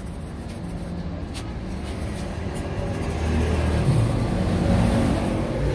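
A motor vehicle's engine rumbling, growing louder about three seconds in.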